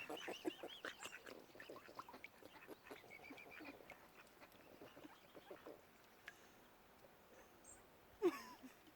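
Waterfowl calling, mostly duck quacks: a rapid chatter of short calls over the first few seconds, then scattered calls, with one louder call near the end.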